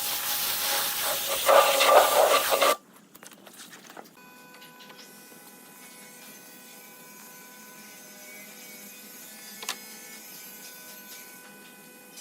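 Loud hissing noise from a running power tool that cuts off abruptly about three seconds in, followed by a faint steady hum with a single click near the end.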